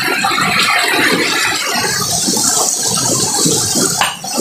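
Hammer knocking and scraping against a boulder in quick repeated strokes, a dense rattling clatter, with a couple of sharper knocks near the end.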